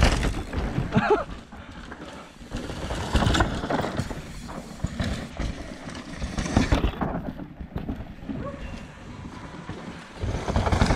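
A downhill mountain bike rushes past close by, its tyres tearing through the loose dirt track, loudest right at the start. More surges of tyre-on-dirt noise follow as another rider comes down the track.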